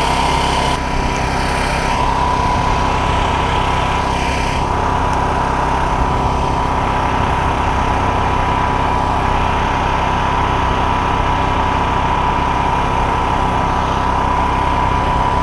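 A small engine running steadily at one constant speed, with a steady high-pitched whine over the drone.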